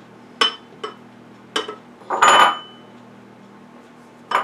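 Knocks and clinks of a bowl and spatula against a stand mixer's stainless steel bowl as butter is tipped and scraped in. There are several sharp knocks with a little metallic ring, and a longer scraping clatter a little past two seconds in.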